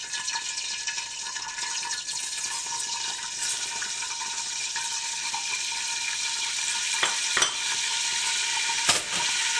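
Flour sizzling as it goes into hot vegetable oil at the start of a roux, a steady frying hiss that slowly grows louder. Two sharp knocks come near the end.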